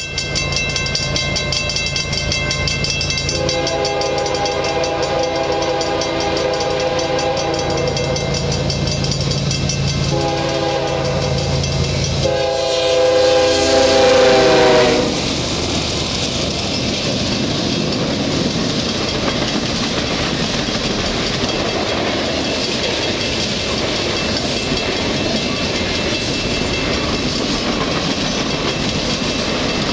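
Diesel freight locomotive's air horn sounding in three blasts as the train approaches, over the steady running of its engine. The pitch drops as the lead locomotive passes, about 14 seconds in. Then the steady rumble and clatter of freight cars rolling by on the rails.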